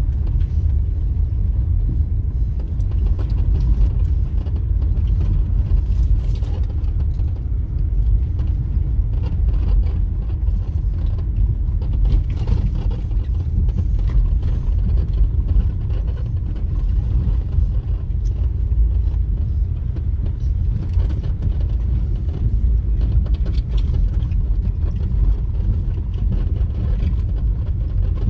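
Steady low rumble of a vehicle driving along a rough, potholed road under construction, with scattered small rattles and knocks.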